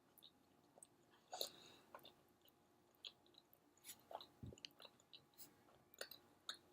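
Very faint chewing: a person eating with the mouth close to the microphone, a few soft scattered clicks and smacks.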